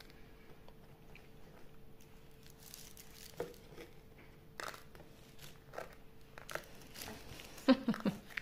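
A baby biting and munching a crisp wafer biscuit: soft, scattered crunches and small clicks, with a few louder taps and rustles near the end. A faint steady hum runs underneath.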